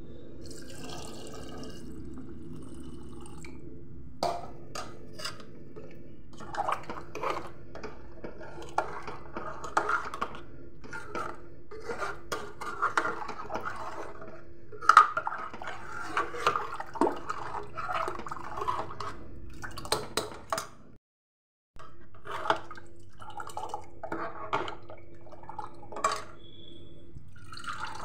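A steel ladle stirring and mashing thick cooked dal in a metal pot: irregular wet slaps and squelches of the lentils with knocks and scrapes of the ladle on the pot, over a steady low hum. The sound drops out completely for a moment about three-quarters of the way through.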